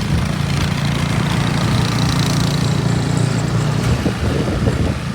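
An engine running steadily with a constant low hum, with a few faint crackles near the end.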